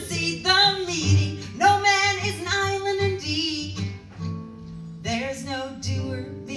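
Woman singing live with an acoustic guitar accompanying her. The voice drops out for about a second and a half in the middle, leaving the guitar alone, then comes back in.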